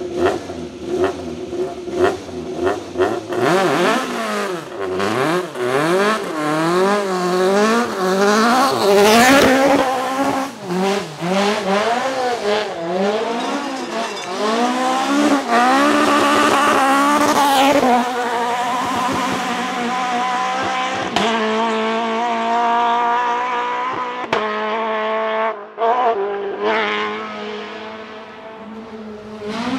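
Fiat 131 rally car's 2.0-litre Alfa Romeo D2 engine with individual throttle bodies, revving up and down quickly many times through the gears, then holding high revs as it passes, with some tyre squeal.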